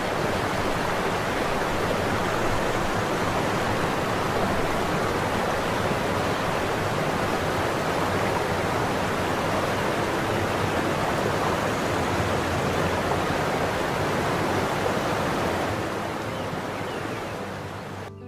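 Waterfall: a loud, steady rush of falling water that fades out over the last couple of seconds.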